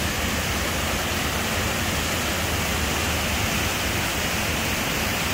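Waterfall's falling water rushing in a steady, even hiss that does not change.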